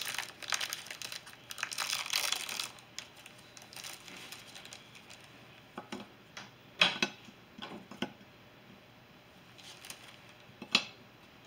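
Cookie packet crinkling for the first few seconds, then sharp clicks as cookies are set down on a glass baking dish, the loudest about seven seconds in and again near the end.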